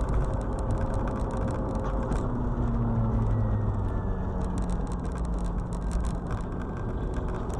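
Car travelling at highway speed as picked up by a dashcam: steady road and engine noise with a low hum that shifts slightly in pitch, overlaid with frequent light ticks and rattles.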